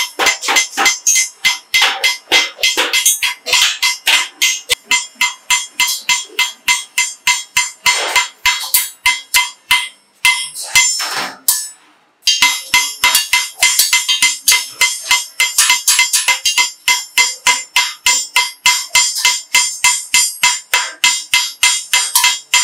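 Hand hammers striking galvanized sheet-metal buckets in a quick, steady rhythm of a few blows a second, each blow ringing. After a short break near the middle, the hammering goes on against a steel hoop held over a bucket.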